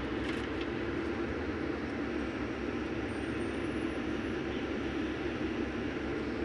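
Steady road and traffic noise heard from inside a moving car, a low, even rumble.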